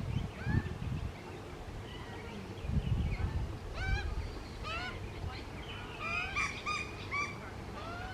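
Young Australian magpies calling: short, squawky calls, each rising in pitch, repeated every second or so, crowding into a quick run of calls near the end. Bursts of low rumble sit beneath them.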